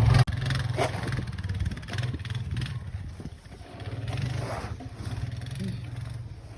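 An engine running steadily at a low, even pitch, with a few brief noises over it.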